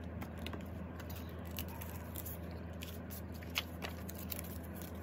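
Photocards and plastic binder sleeves being handled: scattered small clicks and crinkles, the sharpest about three and a half seconds in, over a steady low hum.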